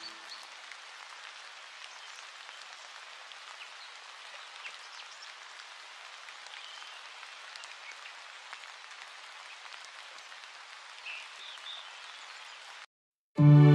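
Faint steady hiss with small scratches and ticks from a fine-tipped ink pen drawing on paper. Near the end the sound cuts out briefly and music begins.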